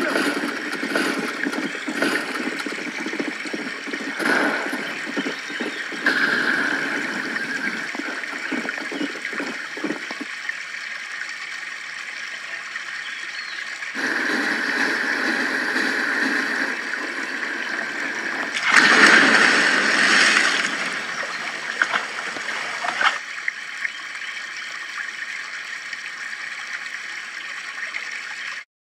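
Running river water with gurgling and splashing, getting louder for a couple of seconds about two-thirds of the way through, then cutting off suddenly near the end.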